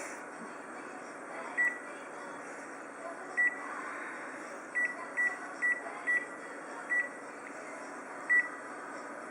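Keys on a photocopier's control panel being pressed, each press giving a short high beep: about eight beeps at irregular intervals over a faint steady hum.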